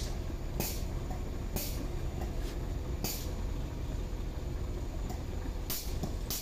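Short, sharp hisses of air, a second or more apart at first and coming closer together near the end, over a steady low rumble.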